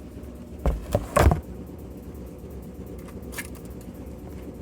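A few sharp knocks and clicks of handling, about a second in, with a fainter click near the end: a security tag being worked off a new cordless tool. A steady low hum runs underneath.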